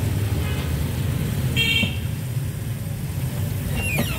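Steady low rumble of street traffic, with a short high-pitched horn toot about a second and a half in.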